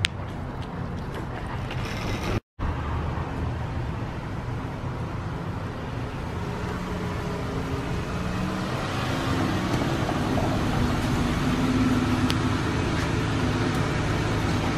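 Dodge Grand Caravan minivan driving up and pulling in close, its engine hum growing louder over the second half. The sound drops out completely for a moment about two seconds in.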